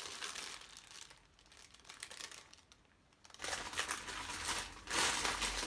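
Confetti paper filler crinkling and rustling as it is handled and pulled apart. Quieter through the middle, then louder over the last two seconds or so.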